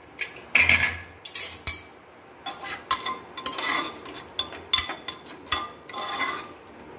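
A spatula stirring thick chana masala in a pressure cooker pot, scraping and clinking against the pot in a string of irregular knocks, with a louder clatter about a second in.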